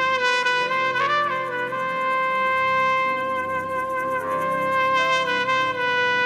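Solo trumpet playing long held notes in a slow worship melody. One high note is sustained for several seconds, with a brief slurred change about a second in, over soft low backing music.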